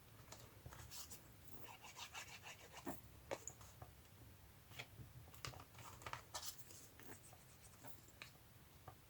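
Faint paper handling: soft rustles and light taps as a paper piece is glued down and pressed into place.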